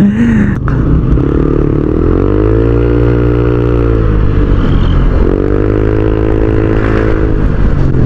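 Honda Click 125i scooter's single-cylinder engine through an MT8 aftermarket racing pipe, loud, rising in pitch as the rider accelerates, easing off about five seconds in, then accelerating again and easing off near the end.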